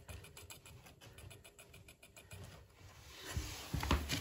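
Vesna-202 portable cassette recorder being handled: a run of faint, rapid ticks, several a second, then louder clicks and knocks near the end as its piano-key buttons are pressed.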